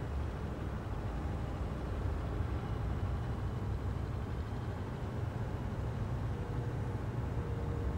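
Diesel engines of construction machinery, a backhoe loader driving slowly across the site beside a tracked excavator, running steadily as a continuous low rumble.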